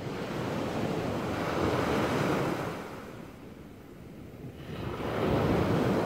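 Small waves breaking and washing up onto a sandy beach: two swells of surf, the first peaking about two seconds in, the second near the end.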